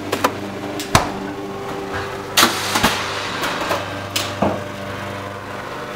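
Walk-behind lawn mower engine running steadily in the background, with several sharp clicks and knocks of things being handled in a kitchen cupboard and at the stove controls, including a short clatter about two and a half seconds in.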